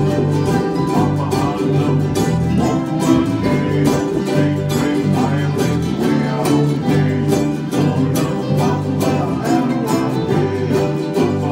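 A group of ukuleles strummed together in a steady rhythm, playing chords of a song.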